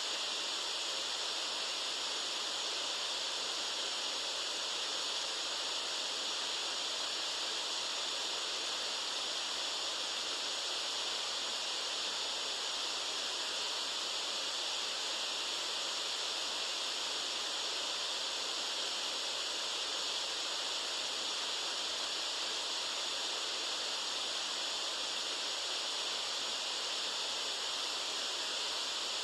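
Electronically generated white noise: a steady, unchanging hiss, bright and strongest high up, with almost no bass.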